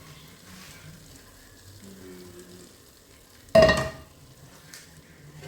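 Food frying with a faint sizzle while it is stirred, and one loud metal clank of a utensil against the pot about three and a half seconds in, ringing briefly.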